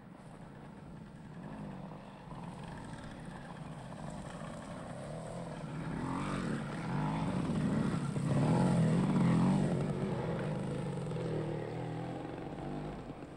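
Motorcycle engines passing by: the sound grows louder, peaks about eight to nine seconds in, then fades away.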